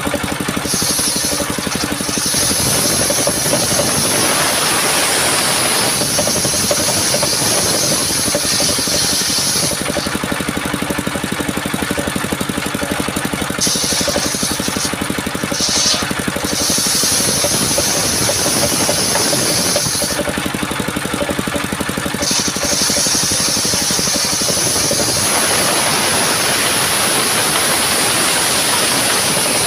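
Engine-driven portable circular sawmill running steadily while sawing a coconut trunk, with a high-pitched hiss that comes and goes several times.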